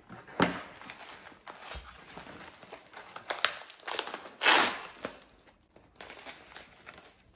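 A small cardboard box and its packing material being opened and handled: crinkling and rustling with a few sharp clicks, and one louder rustle about four and a half seconds in.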